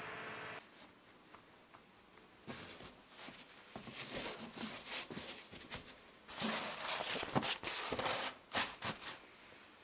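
A steady hum that cuts off about half a second in, then soft handling sounds of hands shaping bread dough on a canvas cloth, followed by louder rustling of a dry canvas cloth being spread over the shaped dough in the last few seconds.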